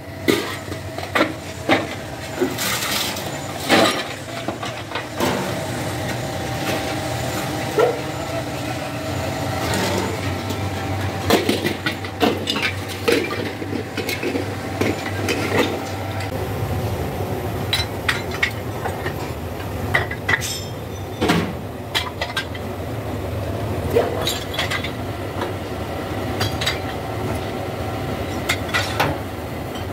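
Scrap metal pieces clanking and clinking irregularly as they are tossed into metal bowls and onto a scrap pile, over a steady machine hum.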